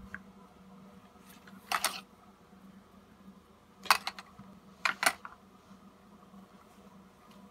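A child's wooden toy mallet knocking on toys: three short bursts of sharp knocks, about two seconds in, at four seconds and at five seconds, over a low steady hum.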